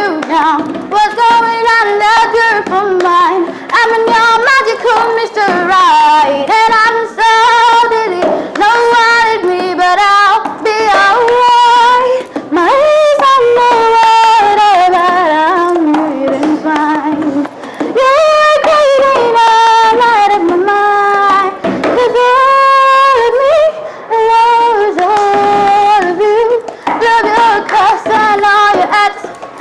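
A woman singing a melody with wavering, gliding pitch, over sharp taps of empty cups.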